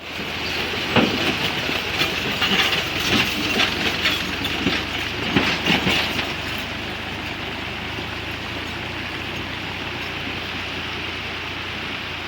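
Tractor pulling a trolley passing close by, the trailer clattering and banging loudly for about six seconds, then a steady rushing noise carries on.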